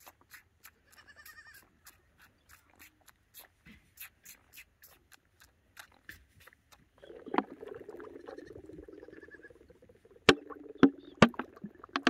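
Alpaca cria suckling from a milk bottle's rubber nipple: a run of faint, quick sucking clicks. About seven seconds in, a low bleat-like animal call lasts about three seconds, and near the end come three sharp, loud clicks.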